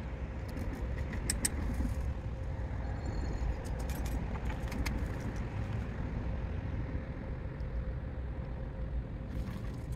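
A few light metallic clicks and handling noises as a compression tester hose is threaded into a spark plug hole on an outboard motor, over a steady low outdoor rumble.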